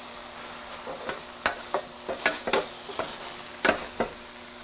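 BBQ-sauced chicken, onions and bacon sizzling on a steel flattop griddle, while two metal spatulas scrape and clack against the griddle plate several times as the chicken is split into two portions.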